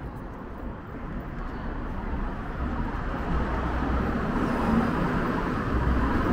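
A motor vehicle passing close by, its noise growing steadily louder as it approaches.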